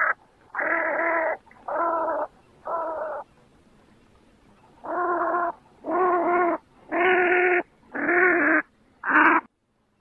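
Rosy-billed pochard (Netta peposaca) calling: a series of about nine short calls of steady pitch, each about half a second long, with a pause of a second and a half midway.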